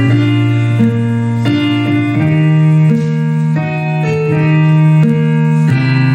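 Instrumental music: a keyboard playing slow, sustained chords over a held bass, the chords changing every second or so.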